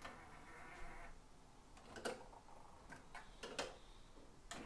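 Faint clicks from the front-panel controls and tape mechanism of a Denon DRS-610 cassette deck, opening with a short mechanical whirr in the first second, then three sharper clicks about two, three and a half and four and a half seconds in.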